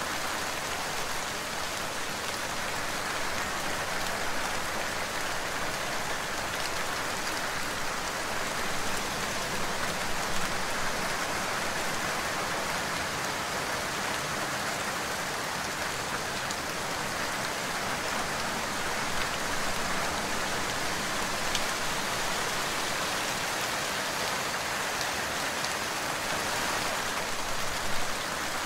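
Steady rain falling, an even hiss with a few slightly louder drops.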